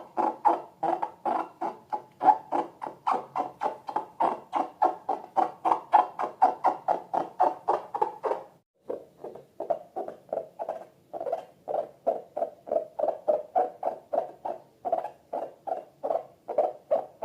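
Slime being squished over and over in a fast, even rhythm, about five squelches a second, with a short pause about halfway through.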